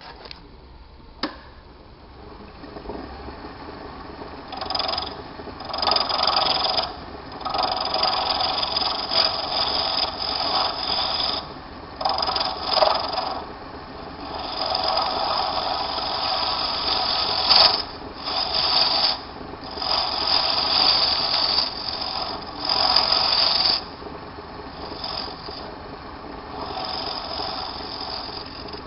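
Hand-held cutting tool scraping against a bone blank spinning in a small lathe, in repeated cuts of one to several seconds over the lathe's steady running. The cuts begin about four seconds in and grow fainter in the last few seconds.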